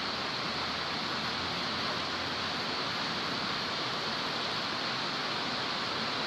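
Steady, even background hiss with no distinct clicks or knocks.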